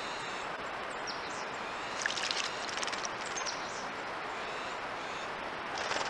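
Northern cardinal bathing in a birdbath: a brief burst of splashing and wing-fluttering about two seconds in and again a second later, over a steady outdoor hiss, with a few short high bird chirps.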